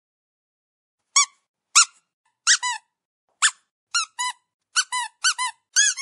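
A squeaky dog toy squeezed again and again: about ten short, high squeaks starting about a second in and coming quicker toward the end, many in pairs of a higher squeak followed by a lower one.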